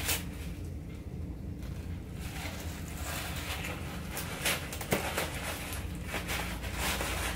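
Soft handling rustle and a few light clicks as a stretchy fabric wig band is pulled around the head and tied at the back, over a steady low hum.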